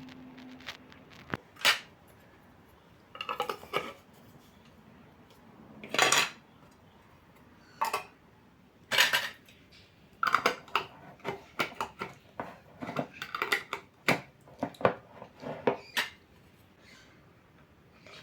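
Kitchen dishes and cutlery clinking and clattering as they are handled, in scattered short bursts that come thicker in the second half.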